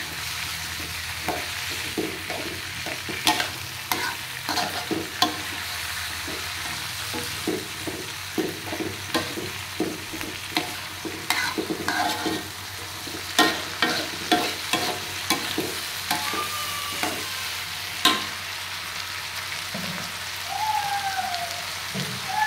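A metal spatula scraping and tapping against a metal wok as vegetables are stir-fried, with a steady sizzle underneath.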